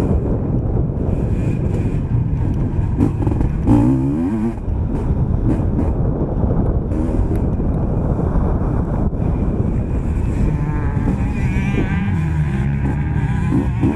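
Motocross bike engine under race load, revving up and down as it rides the track, heard close up from a camera mounted on the bike.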